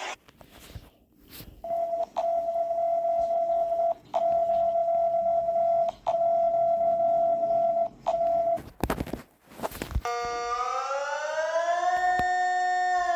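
Emergency alert alarm audio: a steady electronic alarm tone sounding in about two-second stretches with brief breaks. A second of static follows, then a siren tone that rises in pitch and holds high.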